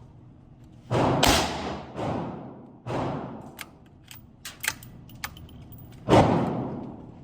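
A gun fired five times, each shot followed by an echo that dies away over about a second. Two shots come close together about a second in, then one at about two seconds and one near three, with a last shot about six seconds in. A few light clicks fall between the shots.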